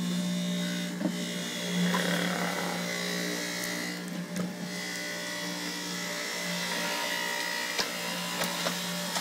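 Electric juicer running with a steady motor hum while pieces of green apple are fed through it. The hum swells a little about two seconds in, and there are a few light knocks.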